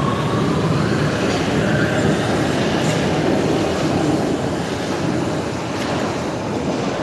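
Metro train running through the station: a steady rumble of wheels on rails, with a whine that rises in pitch about a second in.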